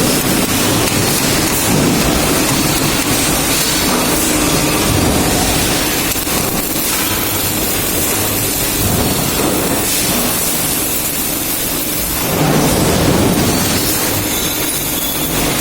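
Robotic MIG welding arc crackling and hissing as the torch lays a weld, a dense, continuous sizzle with small surges and dips in level.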